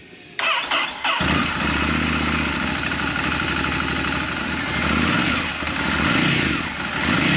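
2020 Ducati Scrambler Cafe Racer's 803 cc air-cooled L-twin on its stock exhaust, cranked by the starter and catching about a second in, then idling steadily.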